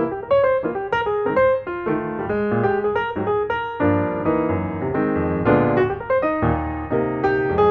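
Background music: a piano playing a melody over chords.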